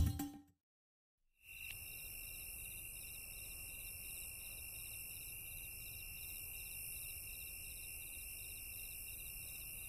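Faint chirping of crickets, starting about a second and a half in: a steady high trill with a faster pulsing chirp above it, over a low rumble.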